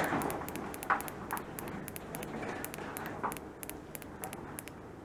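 Small push button pressed rapidly, light clicks about three times a second, each press counting the round counter down by one. A faint low hum sits underneath.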